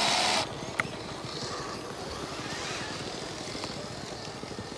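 Radio-controlled scale crawler driving in snow: a short loud burst of wheel spin churning snow at the start, then a quieter steady drive noise as it creeps up the slope.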